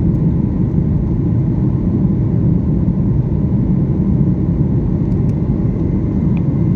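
Steady low rumble of engine and air noise inside an airliner's passenger cabin, even in level throughout.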